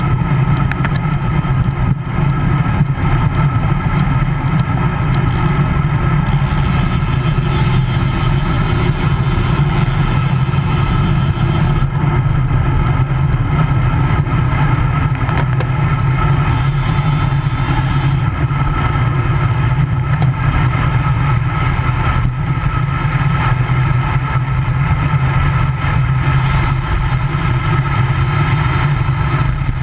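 Wind buffeting the microphone of a handlebar-mounted action camera on a moving road bike, a steady loud low rumble mixed with tyre and road noise.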